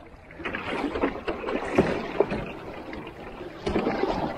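Double-bladed paddle strokes in the water, swishing and splashing in swells, with a couple of sharp clicks about two seconds in.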